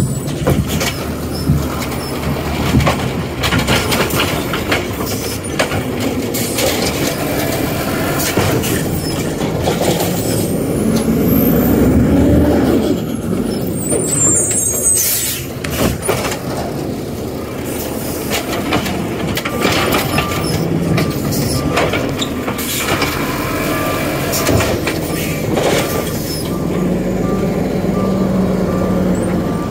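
Side-loading garbage truck working its route: diesel engine and hydraulics running as the automated arm handles a wheeled cart, with clattering knocks, the engine rising in pitch and loudest about ten to twelve seconds in, and a hiss of air brakes. Evenly spaced beeps sound about once a second in the last third.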